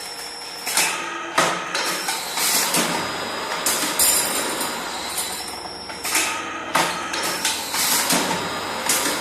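Steel clanking and knocking at a rolling mill for bending steel into rings: irregular metallic impacts, several leaving a high ringing tone, over a steady machine noise.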